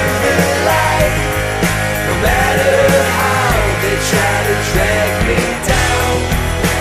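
Loud grunge-style rock music with a driving beat, heavy bass and guitar.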